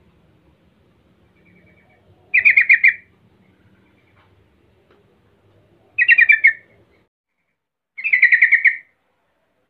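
Yellow-vented bulbul (trucukan) calling: three short, fast chattering phrases of about a second or less each, a few seconds apart.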